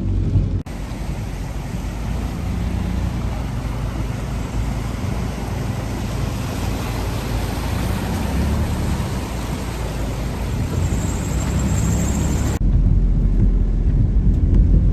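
Heavy rain and floodwater as a steady, loud hiss, with vehicles moving through the flooded road. A low engine rumble briefly opens the sound and returns after a sudden cut near the end.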